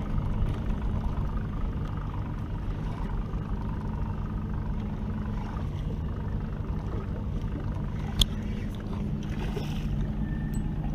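Outboard motor idling with a steady low hum. A single sharp click comes about eight seconds in.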